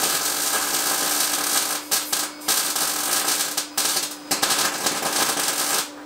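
A power tool running with a steady whine over a loud hiss. It drops out briefly a few times and stops shortly before the end.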